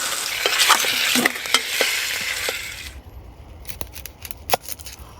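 Food sizzling as it fries in a pot on a wood stove, with the clicks of stirring. The sizzle cuts off abruptly about three seconds in, leaving only a few soft clicks and knocks.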